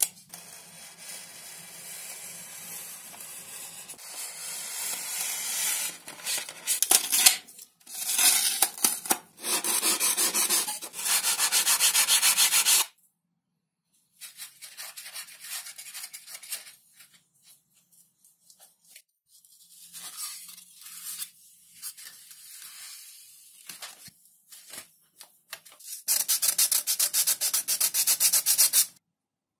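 Hands rubbing and scraping XPS foam model-plane parts, a dry scratchy rubbing in several bouts, the longest and loudest near the middle and near the end.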